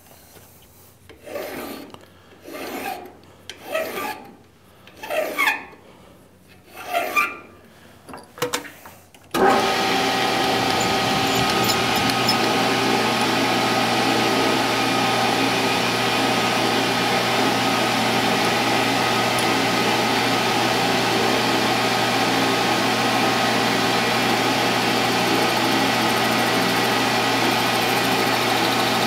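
About six hand deburring strokes rasping on a steel tube part. About nine seconds in, they give way abruptly to a metal lathe running steadily, spinning the eccentric part in its 4-jaw chuck with a constant hum and whine.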